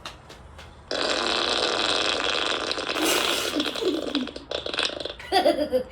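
A long, raspy fart sound effect played through a phone's speaker, starting about a second in and lasting about four seconds.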